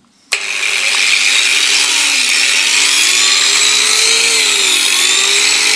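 Small variable-speed angle grinder switched on about a third of a second in, set to 3 on its speed dial, then running steadily with a whine whose pitch wavers slightly.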